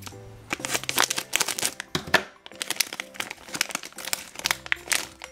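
Plastic blind-bag pouch crinkling in the hands as it is torn open, a rapid run of sharp crackles.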